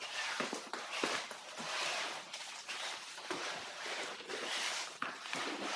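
Rustling and scuffing of someone moving about in winter clothing, with a few short scrapes and clicks.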